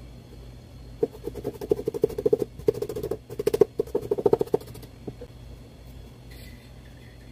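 Knife chopping rapidly down through a potato block held between two wooden skewers, the blade knocking on the skewers at each stroke in a fast run of sharp clicks. The run lasts about three and a half seconds, starting a second in, then stops.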